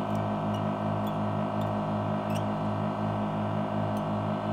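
Vacuum pump of a heated LCD screen separator running, a steady pulsing hum, with a few faint ticks over it.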